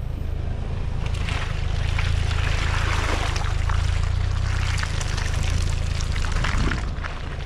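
Off-road tyre of a Ford Bronco Sport rolling slowly through wet mud and puddles on a dirt trail. It makes crackling, splashing and trickling wet sounds over the steady low drone of the vehicle.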